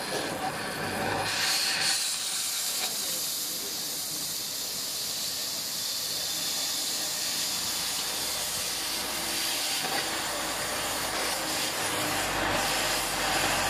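Oxy-fuel cutting torch flame hissing steadily against steel box section as it preheats the metal. Near the end the hiss grows fuller as the cutting oxygen comes on and the cut begins.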